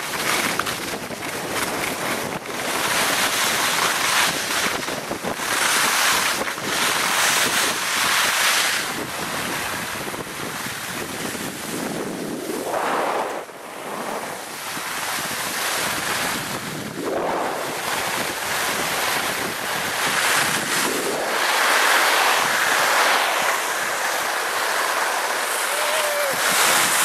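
Wind rushing over the microphone and skis hissing and scraping on groomed snow during a fast downhill run, the rush rising and falling every few seconds.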